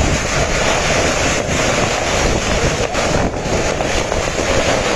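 Storm-force wind gusting hard across the microphone, a loud, continuous rush with no break.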